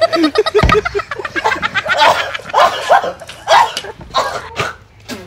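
Young men laughing hard in rapid, pitched outbursts, several in a row, fading near the end.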